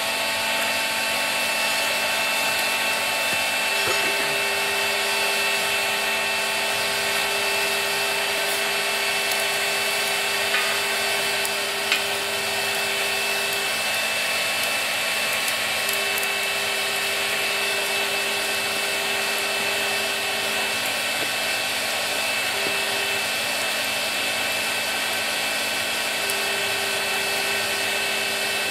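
Hair dryer used as the blower for a blacksmith's forge, running steadily: a whirring motor whine over a rush of air, with one lower hum dropping in and out several times.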